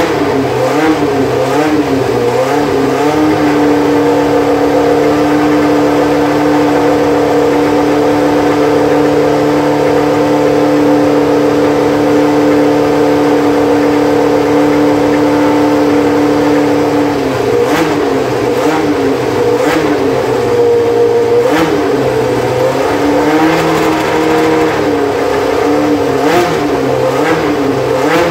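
Williams FW08 Formula 1 car's Cosworth DFV V8 engine running, its throttle blipped up and down, then held at a steady raised speed for about fourteen seconds before the blipping starts again.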